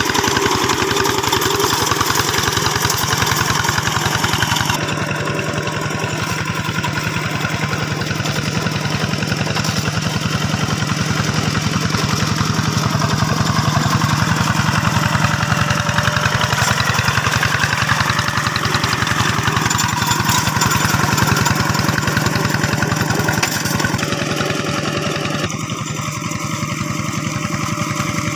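Old single-cylinder diesel engine of a two-wheel rice-field hand tractor running steadily, with rapid, even firing pulses. The engine note shifts about five seconds in and again near the end.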